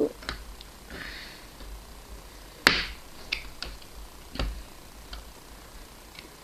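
Small plastic clicks and taps as a model railway buffer stop is pushed and fitted onto the end of the track. A short scrape comes about a second in, and one sharp click, the loudest, a little before halfway.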